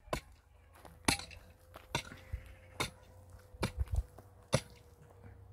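A hand tool striking repeatedly at a working pace, about one sharp blow a second, some of them with a clink.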